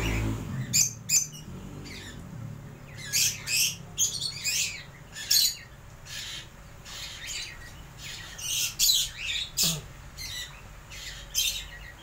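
Cockatiels squawking and chirping: short, shrill calls in clusters of a few at a time, repeating on and off throughout.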